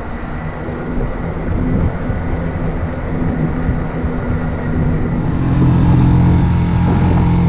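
Quad bike engine running as it pulls uphill, with an uneven rumble of wind on the microphone; the engine gets louder about five and a half seconds in.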